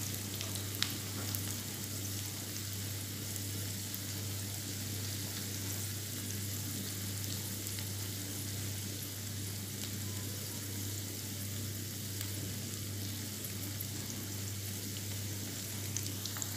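Cabbage and egg omelette sizzling steadily in hot oil in a nonstick frying pan, with a spatula pressing and scraping it now and then. A steady low hum runs underneath.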